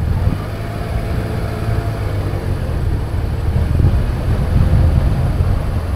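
Car driving on city streets: a steady low rumble of engine and tyres on the road, growing a little louder in the second half.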